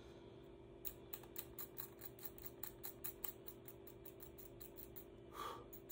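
A small pointed metal pick scratching at the inlay fill in a wooden guitar headstock, working out a bit of dirt caught in it: a quick run of light ticks, about seven a second, for a couple of seconds, over a faint steady hum.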